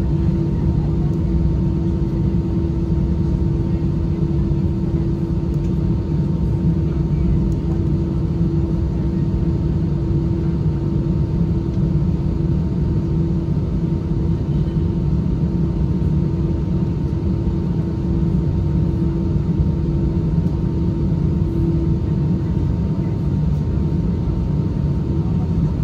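Steady cabin noise inside an Airbus A320-214 on the ground with its CFM56 engines at idle: a low rumble with a steady hum over it.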